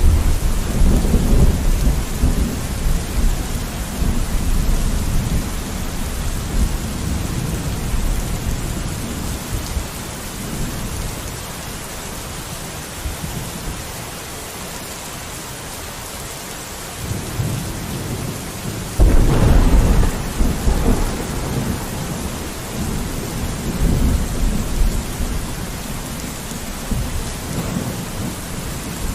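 Steady rain falling on a window, with low rolling thunder: a rumble at the start that fades over about ten seconds, and a louder one that breaks in suddenly about two-thirds of the way through and rolls on.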